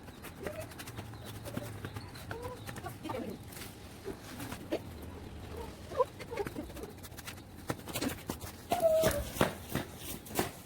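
Short, repeated high-pitched animal calls, with scattered knocks and clicks and a louder cluster near the end.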